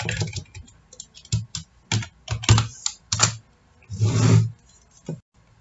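Keystrokes on a computer keyboard: a quick, irregular run of key clicks as a new name is typed, then a louder half-second noise about four seconds in and a last single click.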